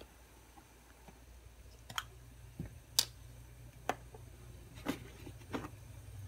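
Light clicks and taps of small plastic lip balm tubes being handled and set down on a glass cooktop, about six sharp clicks spread over a few seconds.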